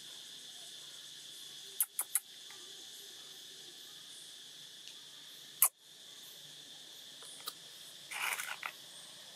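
Steady high-pitched insect drone throughout, with a few sharp clicks about two seconds in, a louder click a little past halfway, and a short scratchy burst near the end.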